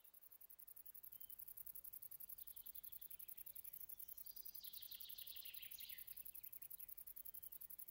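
Oblong meadow bush-cricket (Vichetia oblongicollis) stridulating: a very high-pitched, fast and even train of pulses. In the middle a bird's trill comes in, falling in pitch.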